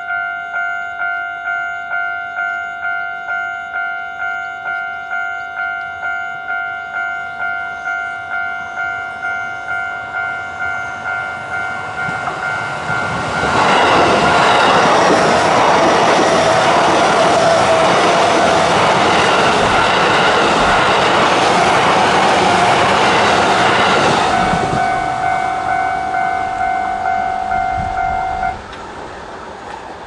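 A level-crossing warning bell rings with a fast, steady, repeating electronic ding. A JR E233-series electric commuter train passes close by as a loud rush of wheels on rail and running gear for about ten seconds, drowning out the bell. The bell rings on for a few seconds after the train and then cuts off abruptly near the end.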